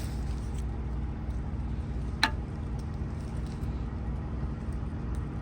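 Steady low hum of an idling vehicle engine, with a single sharp click about two seconds in.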